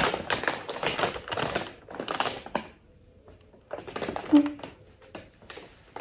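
Thin plastic carrier bag crackling and rustling as it is handled with a boxed laptop inside, in two spells of quick crackles with a short pause about halfway through.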